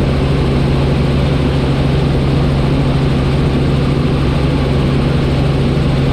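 Helicopter in flight, heard from inside the cabin: engine and rotor running steadily as a constant low hum with an even drone over it, unchanging throughout.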